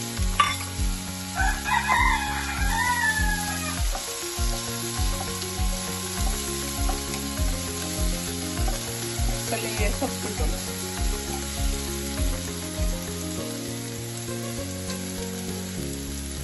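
Sliced garlic and shallots sizzling in hot coconut oil in a non-stick wok as they brown, stirred now and then with a wooden spatula. A loud wavering call rises and falls about two seconds in. Background music with a steady bass beat runs underneath.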